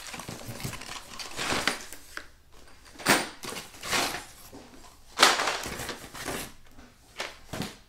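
Cardboard hardware box being handled and opened: rustling and scraping, with several sharp knocks and clacks, the loudest about five seconds in.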